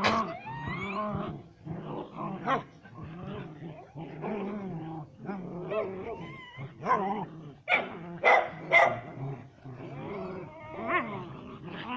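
Dogs barking and growling in a run of short calls, with some whimpers and yips; the loudest barks come about eight to nine seconds in.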